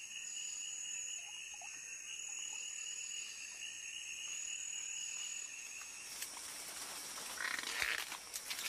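Steady, high-pitched chorus of forest insects or frogs calling, holding two constant pitches. About six seconds in it stops and gives way to rustling and a few sharp snaps of vegetation.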